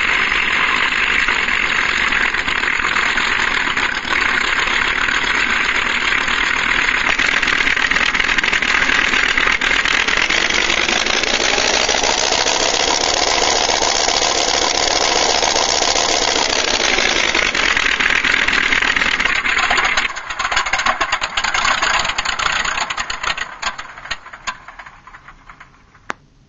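Simulated airplane engine sound played by a MrRCSound V4 RC sound unit. The engine runs steadily, its pitch rises as the throttle opens about ten seconds in and falls back a few seconds later. Then it sputters with pops and winds down to a stop near the end.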